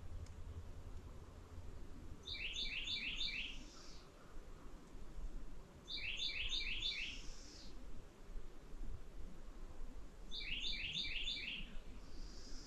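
A songbird singing a short phrase of four quick, downward-sliding chirps, repeated three times about four seconds apart.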